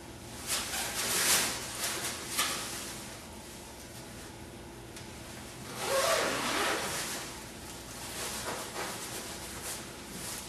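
Rustling of a cleanroom coverall's fabric as the wearer bends and moves, in a few bursts: a cluster in the first couple of seconds, another about six seconds in, and softer ones near the end.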